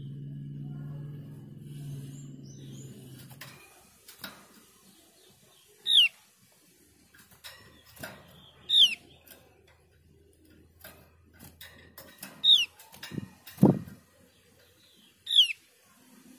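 Javan grey-throated white-eye giving four short, sharp call notes, each sliding down in pitch, spaced about three seconds apart. Light clicks and taps come from the bird hopping about its wire cage, with one heavier thump late on. A low hum runs through the first few seconds.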